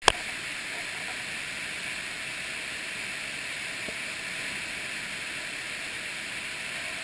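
Waterfall pouring into a plunge pool: a steady, even rush of falling water. A single sharp click at the very start.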